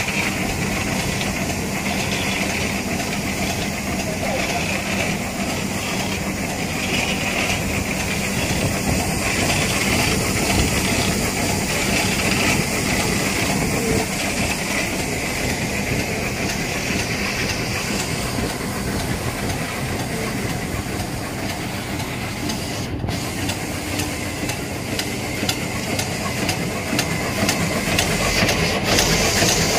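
Vertical form-fill-seal packaging machine with a thermal transfer overprinter running at production speed: a steady mechanical noise with a constant low hum.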